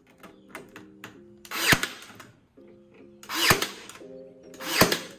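Three short bursts from a power tool working on wooden trim, each ending in a sharp knock, coming roughly every one and a half seconds. Background music with sustained low chords plays underneath.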